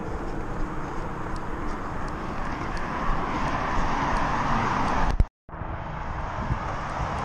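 Traffic noise from a nearby highway and wind rumbling on a runner's body-worn action camera microphone, with faint ticks about three a second in step with the running stride. The traffic swells as a vehicle passes, then the sound cuts off abruptly at an edit about five seconds in and picks up again at once.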